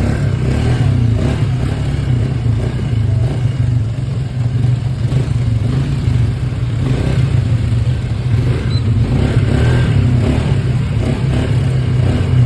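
ATV engine running steadily under way, with a constant low drone throughout.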